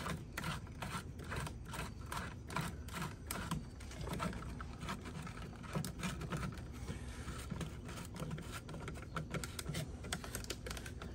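Irregular small clicks and scrapes of a screwdriver and hands working on the plastic coolant overflow tank and its mounting in a van's engine bay.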